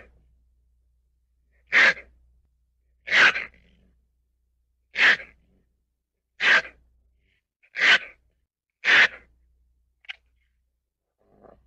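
A ferret making six short, sharp, breathy sounds, one every second or so, with a faint click near the end.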